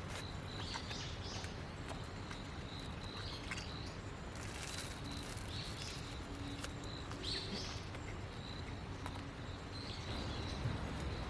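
Small birds chirping now and then over steady outdoor background noise, with a faint steady high tone underneath and a brief rustling hiss in the middle.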